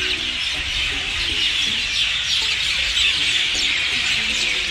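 Dense chorus of many small birds chirping together, a steady chatter of short high chirps.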